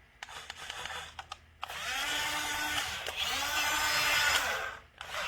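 Toy RC dump truck's small electric motor and plastic gearbox whining, rising in pitch as it spins up, with a brief dip partway through before picking up again, then stopping. Light plastic clicks and rattles come first.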